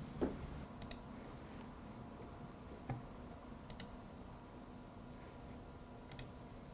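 Quiet room tone with a faint steady hum, broken by a few scattered clicks: a soft knock about a quarter second in, another near three seconds, and three thin, sharp clicks spread through the rest.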